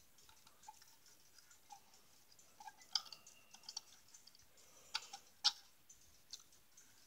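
Faint, irregular light metallic clicks and taps as the pendulum leader wire is handled and fitted to a cuckoo clock movement inside its wooden case. The sharpest click comes about three seconds in, and two more come around five seconds in.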